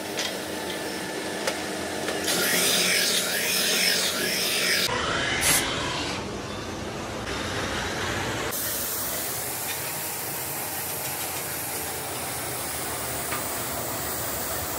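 A brake-lining grinding machine running with its dust extractor for the first few seconds, then a compressed-air spray gun hissing steadily as it sprays paint onto brake shoes.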